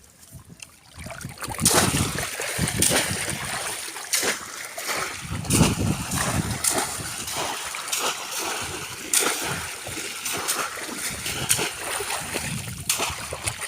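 Splashing in shallow flood water, in sharp splashes about once a second, from polo-trap fishing.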